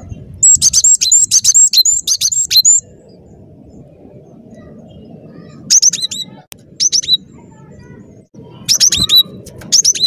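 Cinereous tit (gelatik batu) singing in rapid strings of high, sharp notes: one long run in the first few seconds, then short bursts with pauses between them, over a low steady background rumble.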